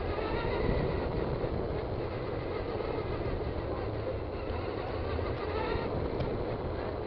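Electric motor and gearing of a Traxxas Stampede 2WD RC truck running under throttle, its whine rising and falling in pitch over a steady rush of tyre and road noise.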